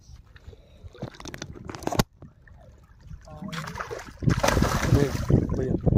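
A hooked fish thrashing and splashing in the shallows as it is landed by hand, the splashing turning loud from about four seconds in. A single sharp knock comes about two seconds in, and a brief voice sounds just before the loud splashing.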